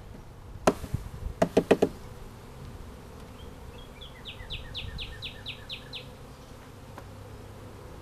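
Honeybees buzzing over an open hive while a wooden frame is jarred to shake the bees off it: one sharp knock about a second in, then four quick knocks. Midway, a run of about eight short falling chirps, like a bird.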